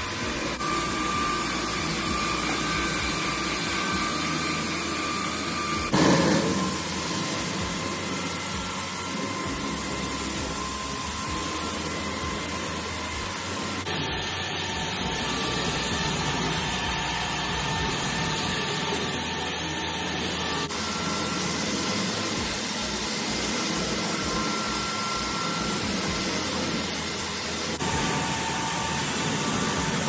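GOLDFIST carpet washing machine running: a steady rushing noise with a motor whine over it, a brief louder burst about six seconds in, and the sound changing abruptly several times.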